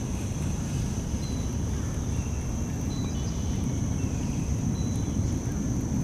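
Steady low wind rumble on the microphone, with a constant thin high-pitched whine and a few short, faint chirps over it.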